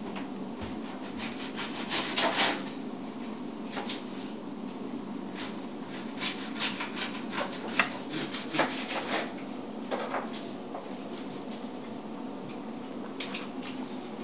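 A kitten's claws scratching and scraping at a scratching post of wooden stools wrapped in cotton rope, in short irregular bouts: the loudest about two seconds in, a busy stretch in the middle, a few more near the end. A steady low hum runs underneath.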